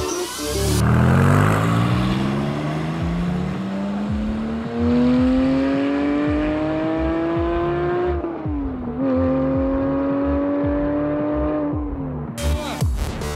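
Porsche 718 Cayman GT4's flat-six engine, with its particulate filters removed and a SCART exhaust fitted, accelerating hard. The revs climb steadily, drop with an upshift about eight seconds in, climb again, then fall away near the end.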